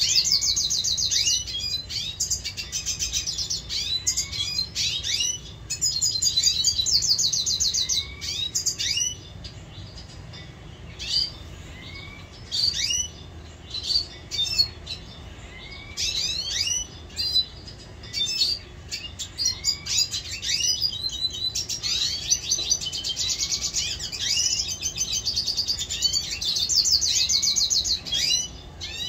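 Caged red siskins singing and chirping: a rapid, high trilled song in the first several seconds and again near the end, with separate short rising chirps scattered between.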